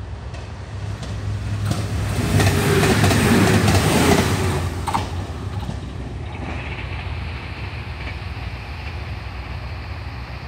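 KiHa 187 diesel limited express train running through the station without stopping: its engine and wheel noise rise to a peak about two to four seconds in, then fade away. A steady low diesel hum from a railcar standing at the platform runs underneath.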